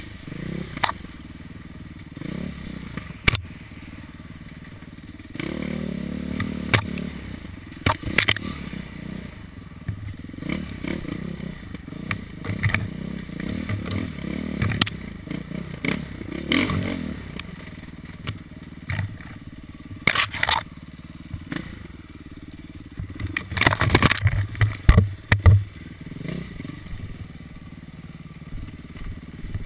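Dirt bike engine running at constantly changing revs as it is ridden over rough trail, with frequent sharp knocks and rattles. There is a burst of heavy knocks about 24 seconds in.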